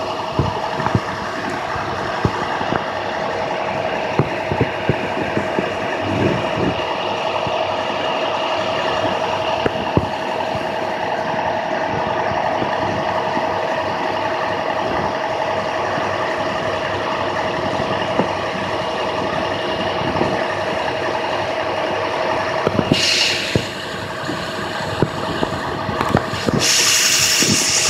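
IC CE school bus diesel engine running steadily at high idle. A short burst of air hiss comes near the end, and a louder air hiss starts a second or so before the end.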